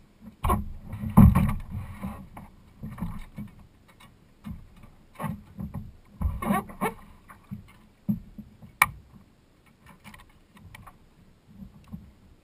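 Irregular knocks and thumps on a plastic kayak hull with water slapping against it, as a caught king mackerel and fishing rods are handled on board. One sharp click comes about nine seconds in.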